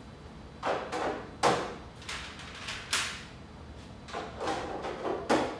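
Plastic hydroponic container covers clattering and knocking as they are handled and set onto the plastic growing trays, a few sharp knocks with lighter taps near the end.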